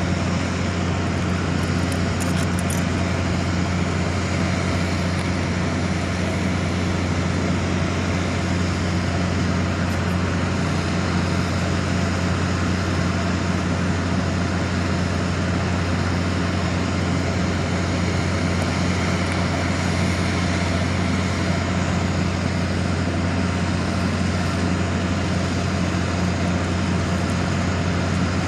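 Steady low mechanical hum over a constant wash of noise, unchanging in level and pitch throughout.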